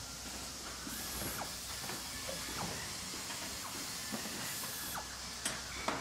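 Cordless Dremel Lite rotary tool with a small ball burr grinding the steel head of a cobbler's hammer. A steady high hiss with scattered scratchy ticks, and two sharper clicks near the end.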